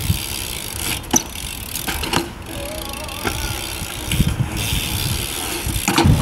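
BMX bike riding on concrete: a steady rumble of tyres rolling, with a few sharp knocks and clacks as the bike lands and strikes the concrete. The loudest knock comes near the end, as the bike hits a concrete ledge.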